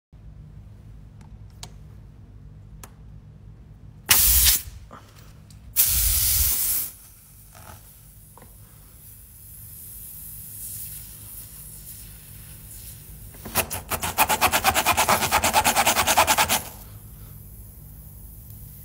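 Two short bursts of hissing spray about four and six seconds in, then about three seconds of fast rasping strokes as a spiral reamer is worked in and out of a nail puncture in a car tyre tread.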